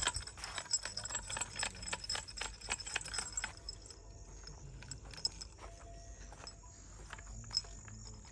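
Rapid light clicks and rattles of plastic bottle floats being handled and carried, mixed with footsteps on dry ground; dense for about the first three seconds, then sparser.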